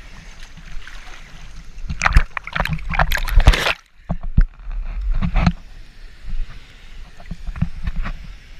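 Water splashing and sloshing over a low rumble of rushing water and wind on the microphone, with a loud burst of splashing about two seconds in that cuts off suddenly, then smaller splashes.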